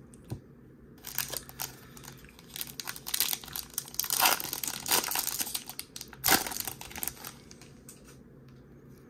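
Foil wrapper of a Topps baseball card pack crinkling and tearing as it is ripped open by hand, starting about a second in and running for some six seconds, with the loudest crackles a little past the middle.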